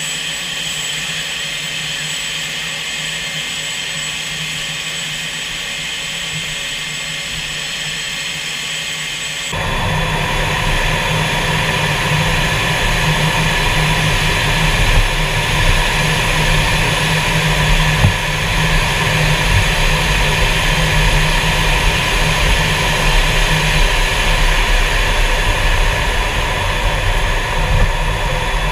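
Fighter jet's engines running, heard from inside the cockpit: a steady whine with several high tones. About a third of the way in the sound abruptly grows louder, with a deep rumble added.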